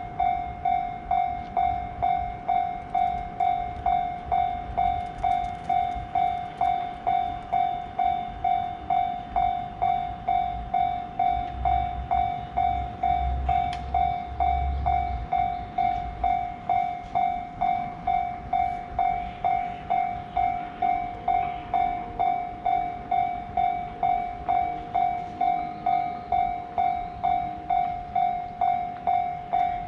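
Japanese level-crossing warning bell ringing: one electronic ding repeating evenly a little under twice a second. A low rumble from a passing train swells under it in the middle.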